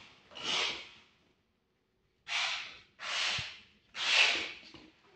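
A person breathing close to the microphone: four breaths of breathy hiss with short gaps between them.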